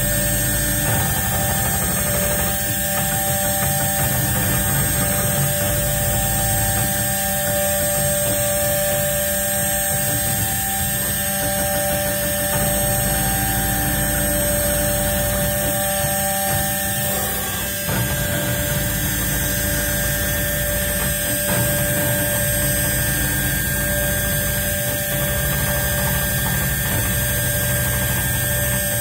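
CNC engraving machine running: a steady mechanical hum with several whining tones that change pitch or drop out as the machine moves, and a brief dip a little past halfway.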